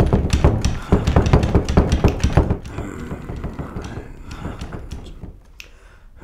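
A brass doorknob rattled hard and fast, the door knocking in its frame with a quick run of clacks for about two and a half seconds. Then a few faint taps.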